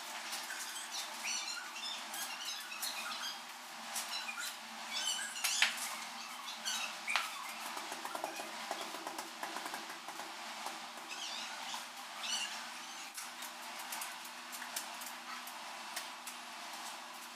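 Hand tiling work: scattered taps, clicks and scrapes as ceramic wall tiles are pressed into mortar, with one sharp tap a little over five seconds in. Short high chirps are heard throughout.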